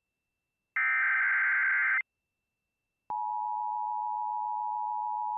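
Emergency Alert System signalling: one short warbling data burst of the SAME header, about a second long, then after a second of silence the steady two-tone EAS attention signal sounds and holds. The tones announce a National Weather Service high wind warning.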